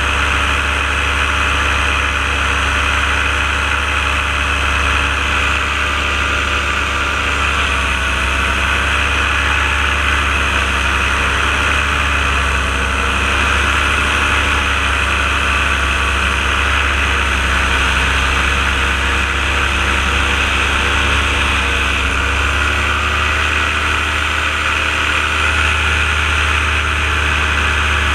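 Paramotor engine and propeller running steadily in flight, the pitch wavering slightly a few times as the throttle shifts.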